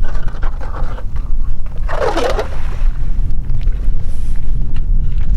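Wind rumbling on the microphone, with faint scrapes and clicks and a short louder rush about two seconds in.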